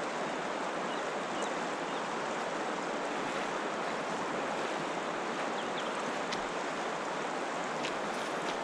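Steady rushing of the Tongariro River's current, an even wash of water noise with a few faint ticks over it.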